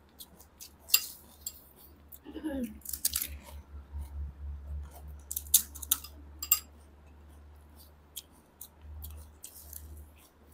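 Two people quickly eating pani puri (golgappa): crisp hollow puri shells cracked open with the fingers and crunched, with chewing and light clinks on steel plates and bowls, heard as scattered clicks and crackles. A short vocal murmur comes about two and a half seconds in, over a low steady hum.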